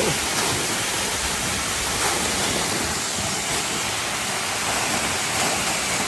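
Waterfall pouring down a rock face into a plunge pool, heard close up as a steady, even rush of water.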